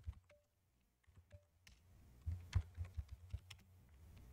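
Typing on a computer keyboard: a few scattered keystrokes, a short pause, then a quicker run of keystrokes from about halfway through.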